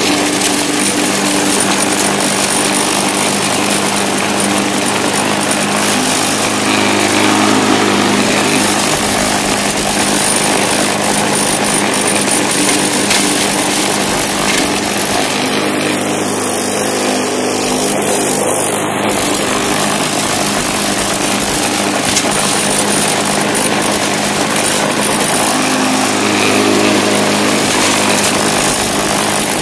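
Bolens mulching push mower's small Briggs & Stratton engine running steadily while it cuts grass.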